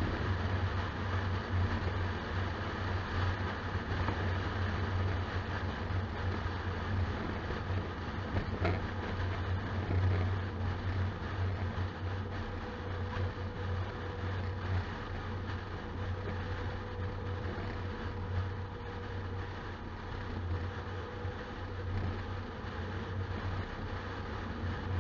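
Steady drone of a road vehicle driving at a constant pace, picked up by a dashcam inside the cab: engine and tyre noise with a strong low hum. A faint steady whine joins for several seconds past the middle.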